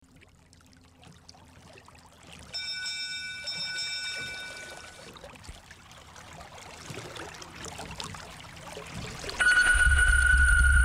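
Ambient intro music over a soft noisy wash. A bell-like chime rings about two and a half seconds in. Near the end a loud deep bass and a steady high tone come in.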